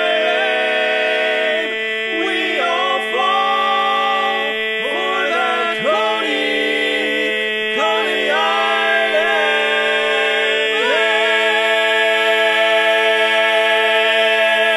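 Male barbershop quartet singing a cappella, the closing tag of the song: one note is held throughout while the other voices slide between chords. About eleven seconds in they settle on a long, loud final chord held to the end.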